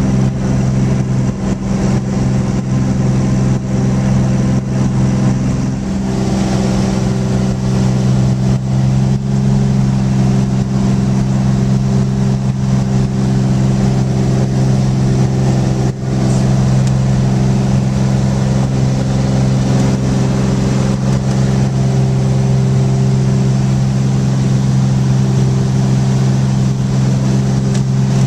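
Cessna 210's six-cylinder piston engine and propeller droning steadily, heard from inside the cabin during takeoff and the climb-out.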